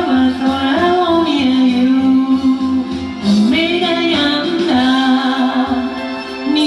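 Singing over a pop backing track: one voice holds long notes and slides between them over steady accompaniment.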